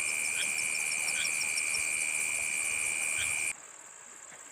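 Night insect chorus: a steady high trill with faster pulsing above it and a few short chirps, dropping suddenly to a fainter trill about three and a half seconds in.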